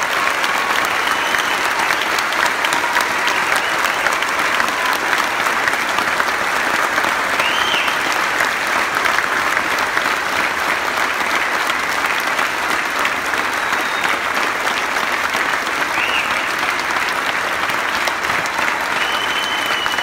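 Large standing audience applauding, a dense, steady clapping with a few brief high-pitched calls rising above it.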